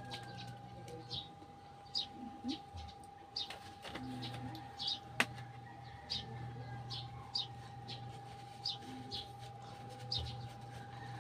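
Small birds chirping in short, quick clusters of high chirps, over a steady faint hum, with one sharp click about five seconds in.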